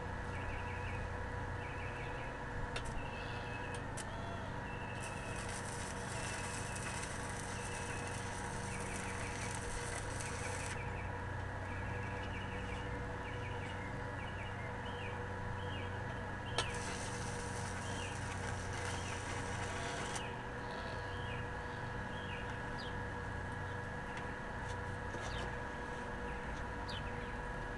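Stick (SMAW) welding arc from a DC inverter welder, crackling and frying in two runs of about six and four seconds, the second starting with a sharp strike.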